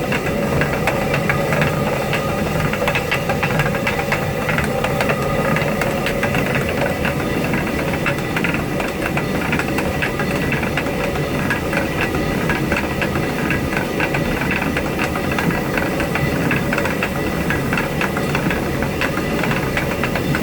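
Water-powered stone mill running steadily as it grinds rice into flour: rushing water under a dense, even rattle and clatter from the turning millstone.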